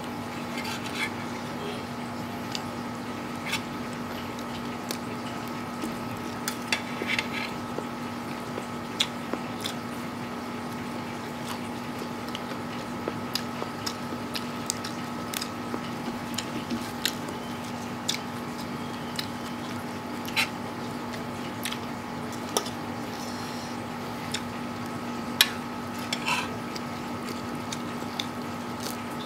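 Close-up eating sounds of a man chewing raw papaya leaves and hand-eaten instant noodles: irregular sharp mouth clicks and smacks, with leaves torn now and then. A steady background hum runs underneath.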